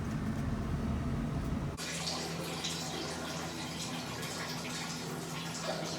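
Water running, with a steady low hum under it; the sound changes suddenly about two seconds in.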